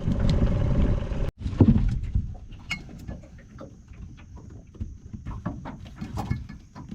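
A boat motor running steadily cuts off abruptly about a second in. A loud thump follows, then scattered clicks and knocks as a crab pot and its catch are handled.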